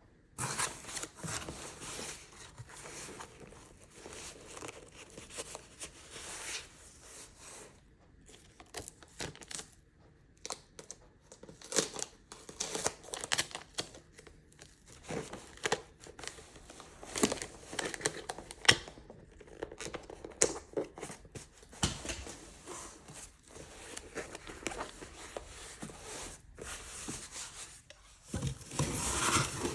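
Packaging materials being handled to pack an order: paper and plastic crinkling and tearing in irregular bursts.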